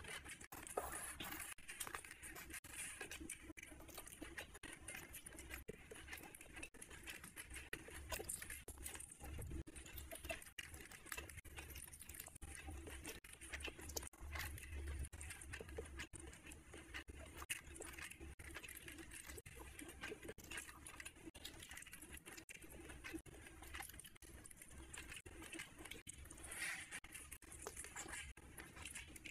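Wet chewing and lip-smacking of a person eating rice and curry by hand, many small clicks close together, with soft squelching as fingers mix the rice on the plate.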